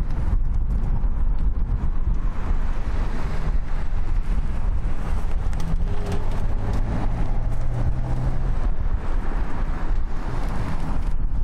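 Boeing 777F's twin GE90 turbofan engines running at low taxi power as the freighter turns onto the runway, a steady low rumble mixed with wind buffeting the microphone.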